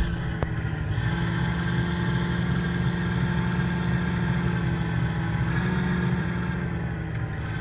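Land Rover Defender's engine running steadily at low revs, with a slight rise in pitch about five and a half seconds in and a single sharp click about half a second in.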